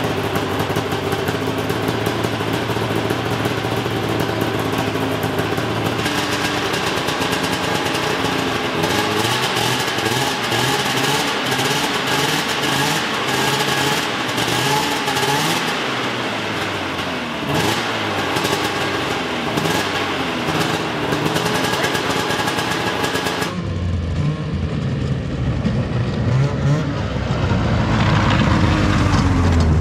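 Vintage snowmobile's two-stroke engine running in a shop, first steady, then rising and falling in pitch as it is revved. After a cut it is heard being ridden outdoors, as a lower running sound that rises in pitch near the end as the sled accelerates.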